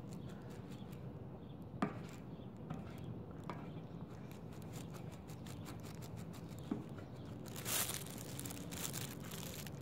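Hair dye being stirred in a plastic bowl with a thin plastic stick: faint scraping with a few light clicks, then louder scraping for about a second and a half near the end.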